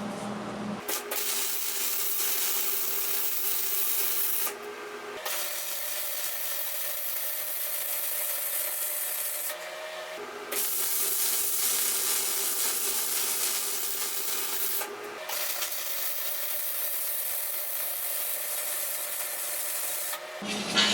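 Stick (arc) welder burning a rod on steel angle iron and flat bar: a steady crackling hiss, broken off briefly three times as the arc stops and restarts.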